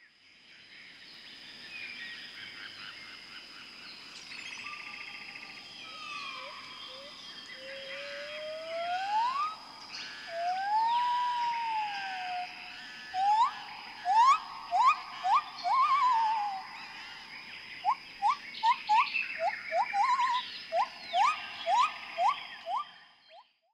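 Wildlife ambience of many chirping birds over a steady high drone, with rising whistled calls that turn quick and repeated through the second half. It fades in at the start and fades out near the end.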